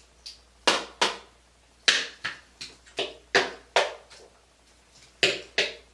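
Makeup brush patting foundation onto the face and neck: a dozen short, sharp pats, two to three a second, with a brief pause near the end.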